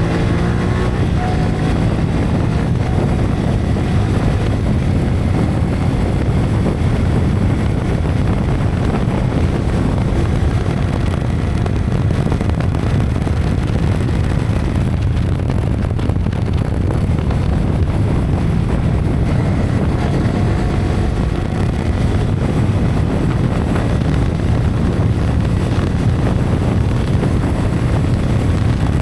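Heavy wind buffeting on an action camera's built-in microphone at riding speed on a Yamaha R15 V3 motorcycle, a steady low rumble throughout. The bike's 155 cc single-cylinder engine sounds faintly beneath it, with its pitch rising just at the start.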